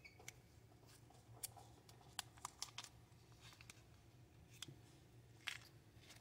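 Faint crinkles and scattered clicks of a small plastic bead bag being opened by hand, a few sharper ticks among them.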